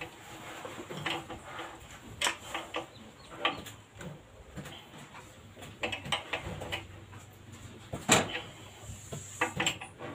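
Irregular clicks and knocks of a hand tool and metal carburetor parts while a 28mm Mikuni carburetor is fitted to a small boat engine, with one sharper knock about eight seconds in.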